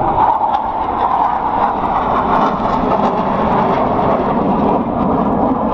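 Loud, steady jet engine noise from four Blue Angels F/A-18 jets flying a low pass in diamond formation.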